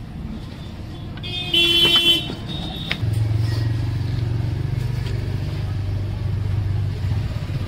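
A vehicle horn sounds briefly about a second and a half in. From about three seconds a motor vehicle's engine runs with a steady low hum.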